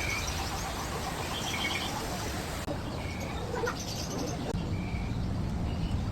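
Small birds chirping in short, repeated high notes over steady background noise.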